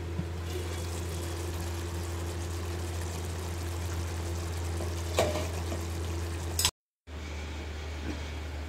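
Chicken and drumstick curry simmering and bubbling in a pan over a steady low hum, with a brief knock about five seconds in. The sound drops out for a moment just before seven seconds, then the hum returns.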